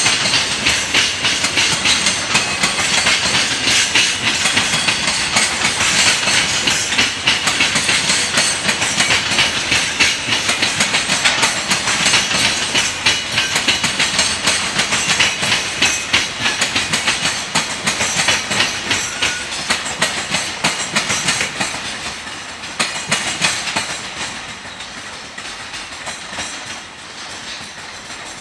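Freight train wagons passing at speed, their wheels clattering rapidly over the rail joints. The clatter fades away over the last few seconds.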